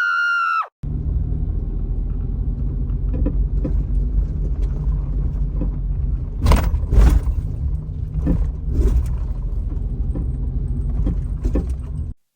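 Suzuki Every kei van running: a steady low rumble with a few sharp knocks and rattles scattered through, the loudest about six to seven seconds in. It cuts off just before the end.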